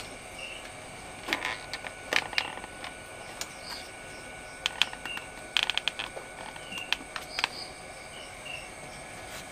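Plastic power bank case handled in the hands, giving small clusters of clicks and light plastic knocks a few times, loudest between five and six seconds in. Insects chirp faintly behind it.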